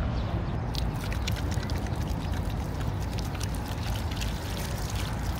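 Tap water running steadily from a faucet into a ceramic washbasin while hands are washed under the stream.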